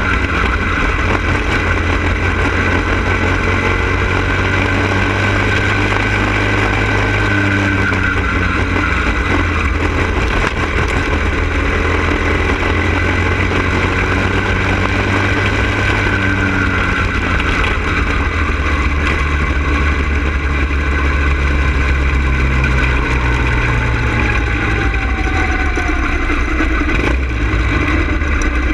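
Go-kart engine running steadily at racing speed, heard up close from the kart itself, with wind rushing on the microphone.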